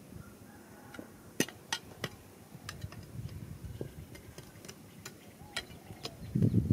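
Hand digging in stony ground: a small tool knocking against rocks and gravel in sharp, irregular clicks, about ten over several seconds. Near the end a louder, rough scraping and crunching starts.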